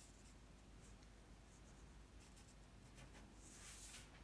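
Faint scratching of a felt-tip marker drawing short sketchy strokes on paper, with a longer stroke near the end; otherwise near silence.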